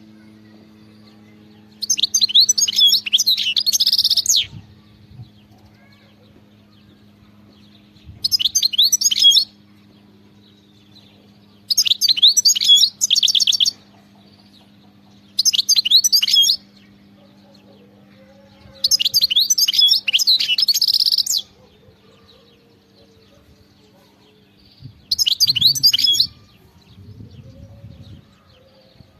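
European goldfinch singing: six separate phrases of rapid, high-pitched twittering, each one to two and a half seconds long, with pauses of a few seconds between them.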